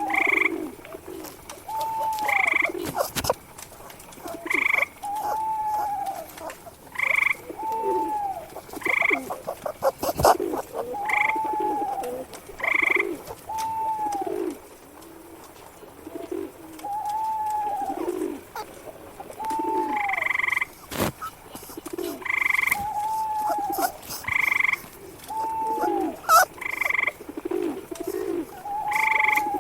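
Layered animal calls in a looped forest ambience: short arched rising-and-falling calls repeating every couple of seconds over lower croak-like calls and higher repeated notes, with a few sharp clicks.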